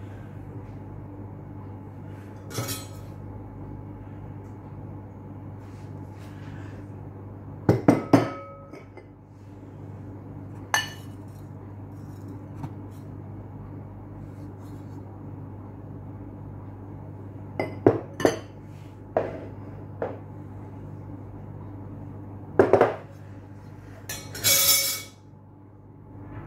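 Cut-glass bowls clinking and knocking as they are picked up and set down on a wooden table: scattered sharp clinks, a few in quick pairs, with a short scrape near the end, over a steady low hum.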